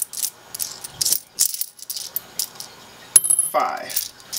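A handful of US coins clinking and jingling in a palm as they are picked through and counted, with a string of sharp, irregular metallic clicks.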